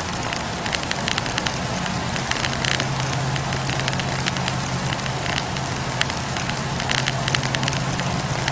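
Wood campfire burning, with frequent sharp crackles and pops from the burning wood over a steady hiss and a low steady hum.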